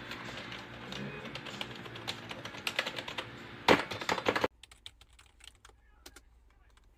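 Typing on a W&J GTX300 mechanical gaming keyboard: rapid key clicks, with a loud flurry of keystrokes a little before halfway. Partway through, the background hum drops away suddenly and the keys carry on, fainter and sparser.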